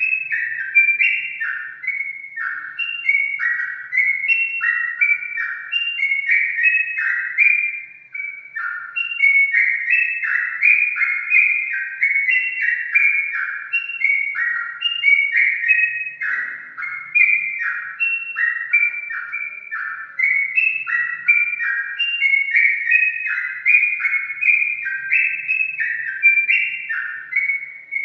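Yellow-vented bulbul singing: a continuous run of short, bubbly whistled notes, several a second, with a brief break about eight seconds in.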